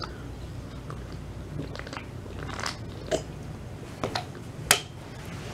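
A person drinking from an energy drink can, with close mouth and swallowing sounds and a few short clicks and knocks, the sharpest about four and a half seconds in, over a low steady room hum.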